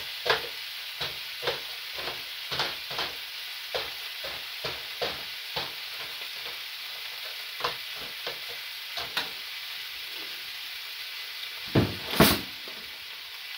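Diced onions sizzling in a frying pan while a spatula scrapes and stirs them in irregular strokes. A loud double thump comes near the end.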